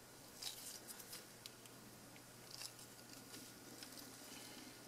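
Faint, irregular little clicks and taps of tweezers and gloved fingers against the plastic multimeter housing while a replacement display elastomer is pushed down into its slot, in two small clusters, one near the start and one around the middle.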